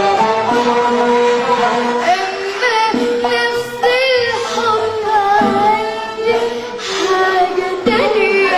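A young girl singing an Arabic song in long, ornamented phrases with wavering held notes, over a live band's accompaniment.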